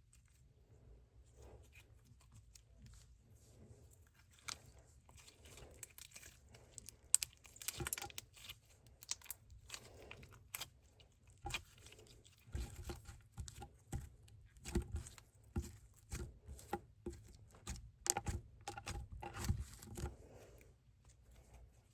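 Scented slime being stretched, squished and poked by hand, giving off many short crackling pops and clicks. They are sparse at first and come thick and fast from about a third of the way in until just before the end.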